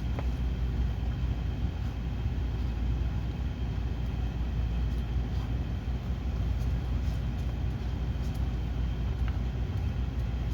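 Steady low hum, with a few faint light clicks.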